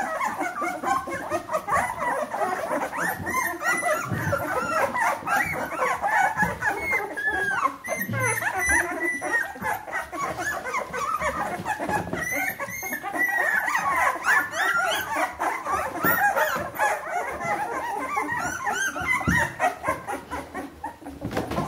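A litter of two-week-old Bernese Mountain Dog puppies whimpering and squeaking, many thin, wavering cries overlapping without a break.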